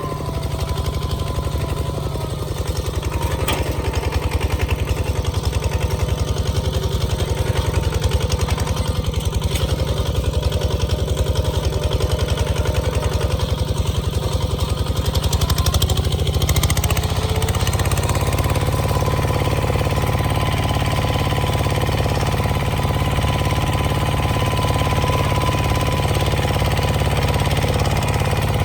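Bulldozer engine running steadily, its note changing about two-thirds of the way through.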